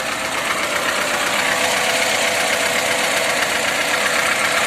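VAZ classic car engine idling with a steady rattle, which comes from the alternator's worn bearings.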